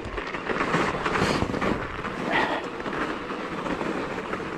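Fat-tyre bike riding up a snowy, icy track: steady noise of the wide tyres rolling over packed snow and ruts.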